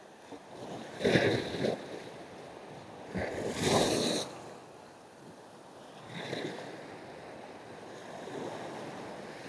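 Small waves breaking and washing up a sandy beach in foamy rushes, swelling and fading four times about two to three seconds apart, the one about four seconds in the loudest.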